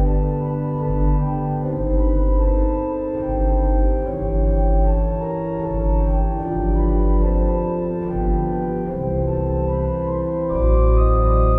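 Organ playing a slow piece in sustained chords over detached bass notes about once a second, swelling fuller and louder near the end.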